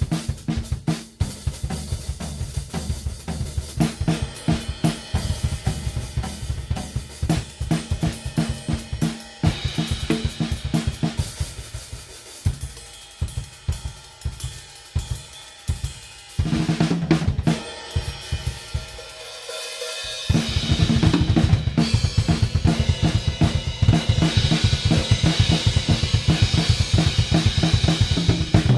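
Drum kit with double hi-hats, three crash cymbals and a splash being played: a busy groove of kick, snare and cymbals, with quieter, sparser hits around the middle and louder, denser playing from about two-thirds through.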